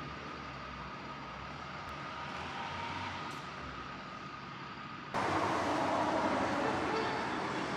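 City street traffic noise, a steady rumble and hiss of passing vehicles that suddenly gets louder about five seconds in.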